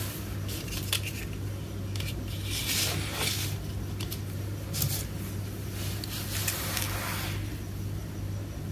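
Small plastic doll furniture and a doll being handled and set down by hand: scattered short scrapes, light clicks and rustles over a steady low hum.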